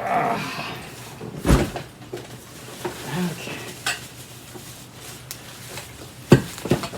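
Rustling of packaging, then a few sharp knocks and clinks of hard vacuum cleaner parts being handled and lifted out of their box, the loudest about a second and a half in and two more close together near the end.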